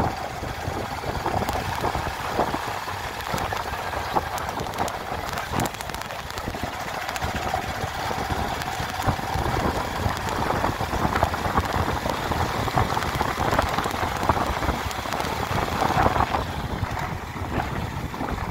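A vehicle on the move: its engine running under steady road noise, with scattered small knocks and bumps.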